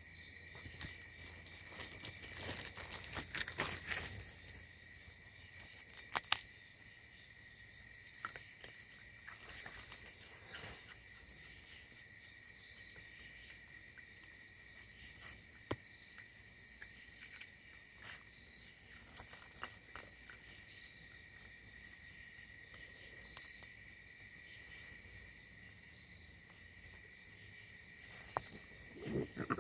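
Steady chorus of night insects, a continuous high-pitched shrill drone in two pitches. A few sharp clicks and soft rustles come over it, the loudest a pair of clicks about six seconds in.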